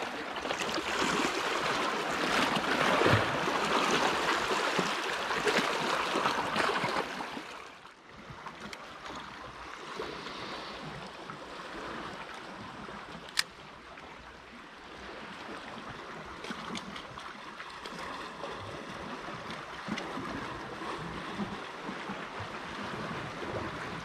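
Sea water sloshing and washing, fairly loud at first, then dropping suddenly to a softer wash about eight seconds in. A single sharp click comes a few seconds after the drop.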